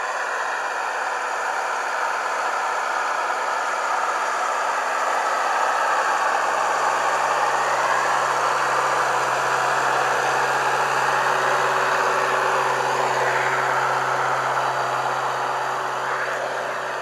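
Zetor tractor's diesel engine working steadily under load while pulling a plough, growing louder as the tractor comes close and fading a little near the end.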